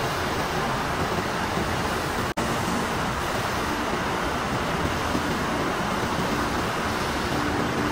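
Textile mill machinery running: a dense, steady hiss-like din with no distinct rhythm. It drops out for a split second a little over two seconds in.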